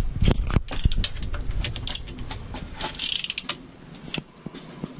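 Hand socket ratchet clicking in quick runs on the bolts of a leaking rear differential cover, with knocks of metal on metal; the densest run of clicks comes about three seconds in.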